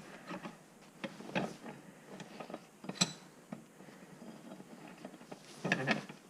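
Light, scattered clicks and taps of a rusty metal pipe wrench being handled and worked on, with one sharper click about three seconds in.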